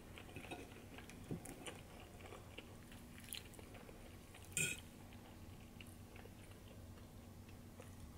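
Quiet eating: a fork scraping and clinking on a metal plate, with faint chewing and one sharper clink about halfway through, over a low steady hum.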